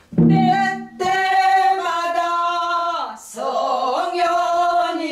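Unaccompanied Korean danga singing in the pansori vocal style: long held notes that bend at the ends, with a lower-pitched sung phrase about a second long at the start and a wavering, shaken note a little past the middle.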